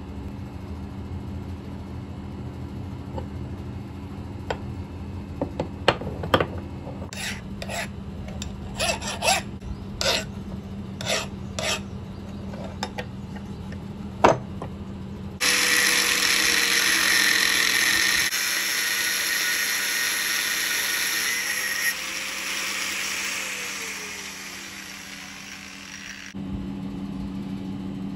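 Steel ball and roller bearings clinking and clanking as they are handled and set down on a wooden workbench. About halfway, an angle grinder cuts into a steel bearing's outer race with a loud, steady, hissing grind for about eleven seconds, then stops shortly before the end.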